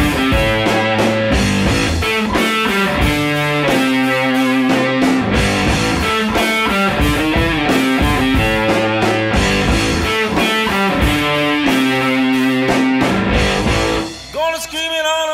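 Background rock song with electric guitar, playing a busy instrumental passage; about fourteen seconds in it drops to a quieter, sparser part.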